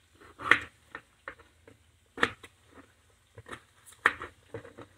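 Small kitchen knife slicing a peeled raw potato on a bamboo cutting board: a string of short, irregular knocks as the blade comes down through the potato onto the board, the loudest about two seconds in.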